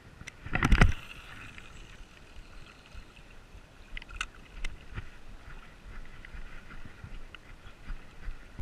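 A fishing rod being cast: a loud whoosh of the rod swinging through about half a second in, then a few sharp clicks a few seconds later as the spinning reel is handled for the retrieve.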